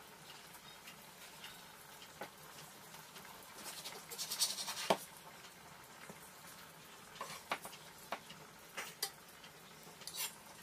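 Chef's knife slicing through a cooked beef roast on a wooden cutting board, steadied with a carving fork: soft sawing scrapes, a denser stretch of cutting about four seconds in, then scattered light clicks and taps of the blade and fork against the board.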